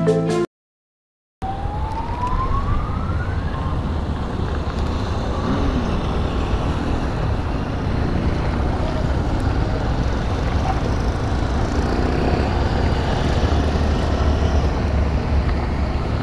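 Motorcycle engine running with wind noise on an onboard camera as the bike rides off, a steady low rumble throughout. A single rising whine about two seconds in. At the very start, music cuts off into a second of silence before the riding sound begins.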